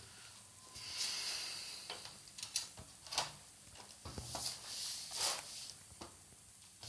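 Handling noises from work on an opened laptop: rubbing and scraping with a scatter of small sharp clicks and taps of parts and tools.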